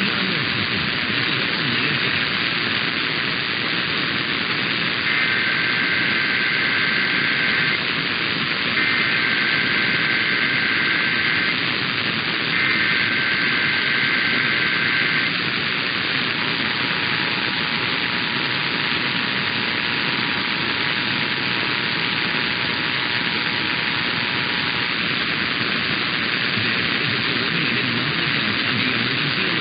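Emergency Alert System test over radio static: three long bursts of SAME header data, each about two and a half seconds with a second's gap, then the two-tone EAS attention signal held as a steady chord for about eight seconds. Steady hiss from the radio's static underneath throughout.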